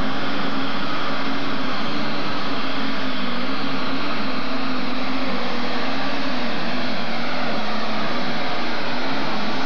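Alcohol-fuelled super stock pulling tractor engine running flat out under load as it drags the weight sled. It makes a loud, unbroken engine note whose pitch wavers slightly as the tractor works down the track.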